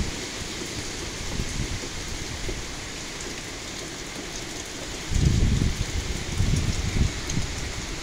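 Heavy hurricane rain pouring steadily in a hiss, with a louder low rumble starting about five seconds in.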